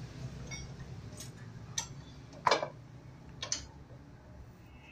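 Irregular metallic clicks and knocks of hand tools working on the rear brake assembly of a Vespa Ape three-wheeler, a handful of sharp strikes, the loudest about two and a half seconds in.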